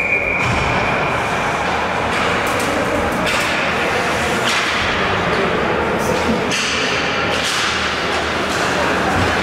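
Ice hockey game noise in an echoing rink: a steady din broken by several sharp knocks and thuds of sticks, puck and boards.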